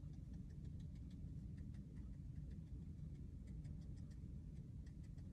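Faint, irregular light ticks of a water brush's tip dabbing dark watercolour onto paper, a few taps a second, over a steady low hum.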